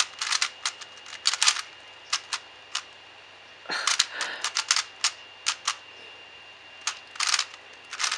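Gans III plastic 3x3 speed cube being turned fast during a solve: short bursts of rapid clicking layer turns, broken by brief pauses.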